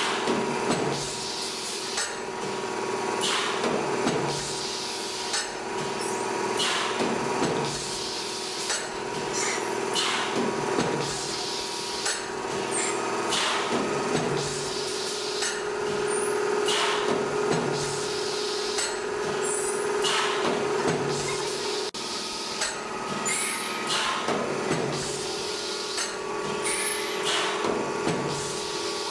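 HX-660A automatic plastic cup making machine running: a regular knock a little under once a second, over a continuous mechanical hum and air hiss from its pneumatics.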